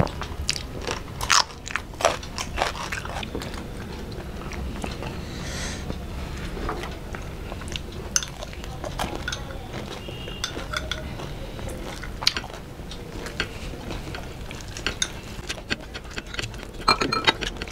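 Close-miked eating: chewing and crunching of fried fish and rice eaten by hand, with many short sharp clicks scattered throughout. A metal spoon clinks against a glass bowl of gravy, with a cluster of clicks near the end.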